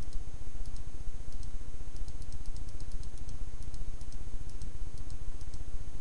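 A rapid, irregular series of light computer-mouse clicks, over a steady low hum.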